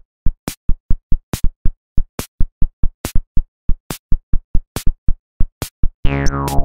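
Electronic music: a bare drum-machine beat of sharp, evenly spaced hits with silence between them, joined about six seconds in by sustained synthesizer chords.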